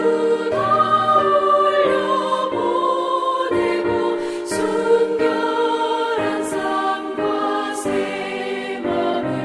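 Choir singing a Korean hymn in long held notes.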